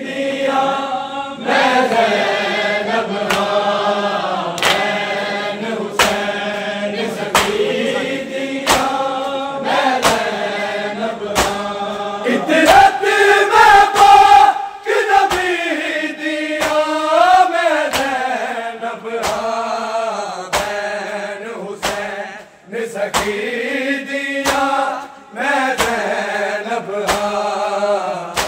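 A group of men sings a Punjabi noha, a Shia lament, in chorus with long held lines. Sharp strikes of hands on bare chests (matam) land in rhythm about once a second under the singing.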